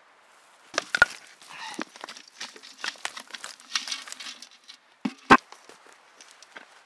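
Dirt tipped from an old metal pot into a fire pit: loose soil and clumps pattering and rustling as they land. Two sharp knocks stand out, about a second in and again near five seconds in.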